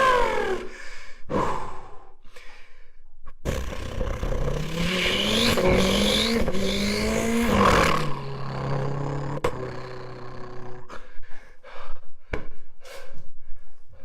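A person imitating a supercar engine with their voice: the pitch climbs in repeated steps, as if revving up through the gears, then settles into a steady low drone. A string of sharp clicks follows near the end.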